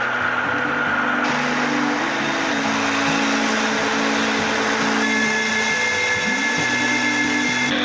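Jet engine hiss and high whine from a Su-35S fighter's twin turbofans running on the ground. Several steady whistling tones come in about five seconds in. Under it, a song's intro plays slow low notes.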